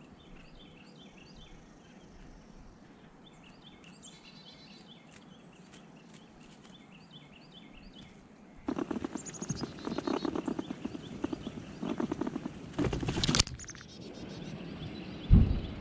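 Faint bird song of short repeated chirps, then, about nine seconds in, loud close crunching and clicking as a gray squirrel chews and scrabbles in corn kernels right beside the microphone. A loud low thump comes near the end.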